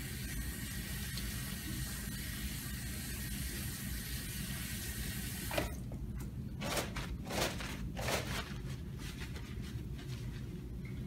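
Tap water running into a stainless steel sink during a hand wash, cutting off suddenly about five and a half seconds in. A few short rustles follow as brown paper towels are taken to dry the hands.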